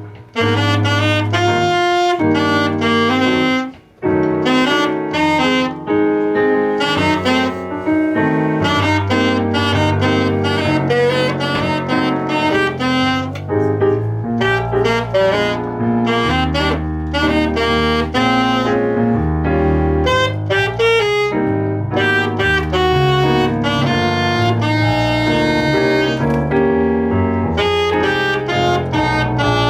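Instrumental jazz with saxophone and piano over a walking bass line, with a short break about 4 s in.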